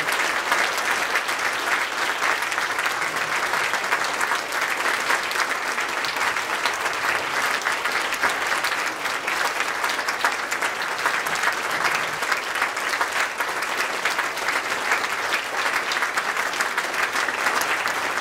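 Sustained applause from a large audience clapping steadily at the close of a speech.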